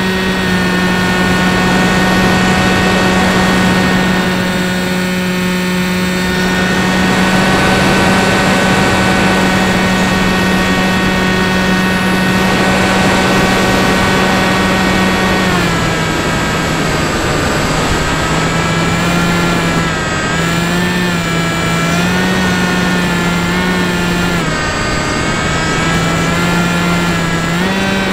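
RC model plane's motor and propeller running with a loud, steady whine, close to the microphone as if the camera rides on the plane. About halfway through the pitch drops a little, then wavers up and down with the throttle.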